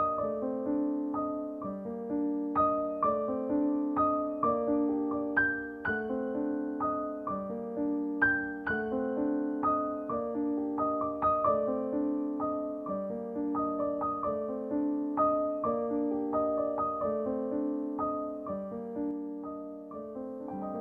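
Background piano music: a gentle melody of single struck notes over sustained chords, at a steady pace.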